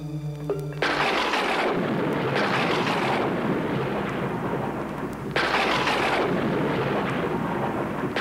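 Thunder sound effect: a sudden crash about a second in, then a long rumble with fresh crashes about two and a half and five and a half seconds in. A few held notes of eerie music cut off as the first crash hits.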